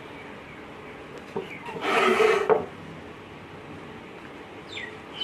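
A kitchen knife drawn through rolled dough and scraping on a wooden board: one loud rasping scrape about two seconds in, with a few lighter taps around it. Near the end, a small bird starts chirping in short falling notes.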